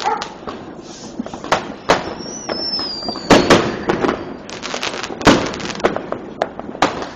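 Fireworks going off: a string of sharp bangs and crackles, the loudest about a third of the way in and again just past the middle. About two seconds in, a firework's whistle slides down in pitch for about a second.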